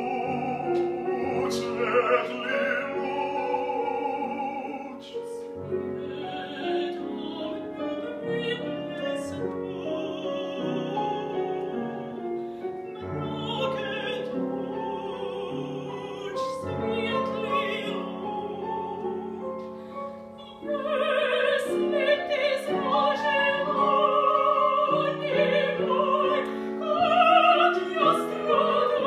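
Female opera singer singing with wide vibrato over piano accompaniment, growing louder about two-thirds of the way through.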